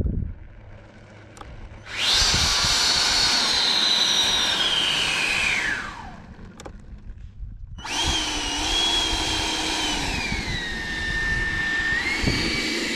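90 mm electric ducted fan of a Black Widow F-18 RC jet on 12S power, whining at high power in two runs. The first comes in suddenly about two seconds in and falls in pitch until it cuts off about six seconds in. The second starts about eight seconds in, dips in pitch, then rises again and is still going at the end.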